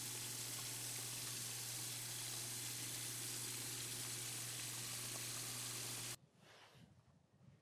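Tap water running steadily into a stainless steel sink as an etched knife blade is rinsed, an even hiss with a low hum under it that cuts off suddenly about six seconds in.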